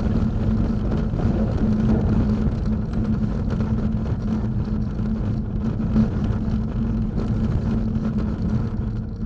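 Car driving on a snow-covered road, heard from inside the cabin: a steady rumble of road and tyre noise from its Continental ExtremeContact DWS06 all-season tyres, with a constant engine drone.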